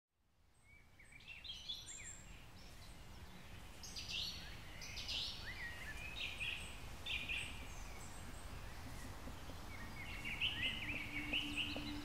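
Small woodland birds singing and chirping in many short overlapping phrases over a low, steady outdoor rumble, fading in over the first couple of seconds.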